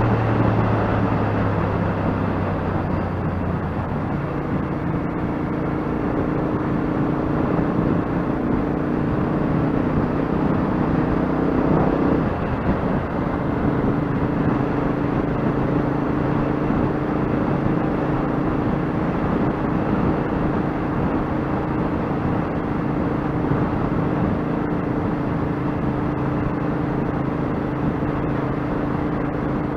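Royal Enfield Interceptor 650's parallel-twin engine running under way, with wind noise over the microphone. The engine note changes about four seconds in and drops in pitch about twelve seconds in, then holds steady.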